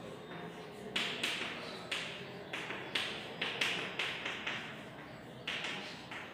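Chalk writing on a chalkboard: a run of short, irregular taps and scrapes of the chalk, two or three a second, starting about a second in.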